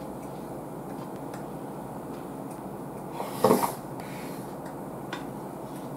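A person slurping a spoonful of soup: one loud, short slurp about three and a half seconds in, with a few faint spoon clicks over a steady background hiss.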